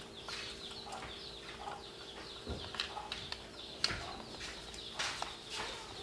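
Light clicks and taps of wires and a hand tool being worked at a plug-in circuit breaker panel. The clicks come about once a second, over a steady faint hum.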